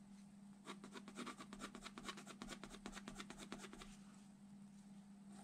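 Coloured pencil scratching on drawing paper in fast back-and-forth shading strokes, about nine a second. The strokes stop a little before four seconds in.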